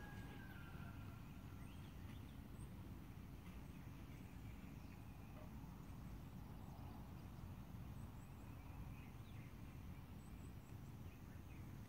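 Faint outdoor ambience: a steady low rumble with scattered faint bird chirps.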